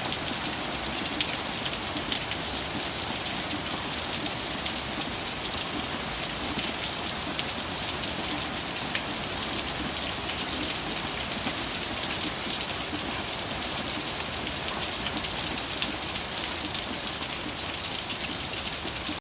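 Steady rain falling, a constant hiss of rainfall with many small drop ticks throughout.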